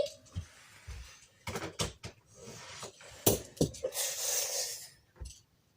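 A Hot Wheels die-cast toy car and its plastic track being handled, making a string of sharp clicks and knocks. A short rushing sound comes about four seconds in.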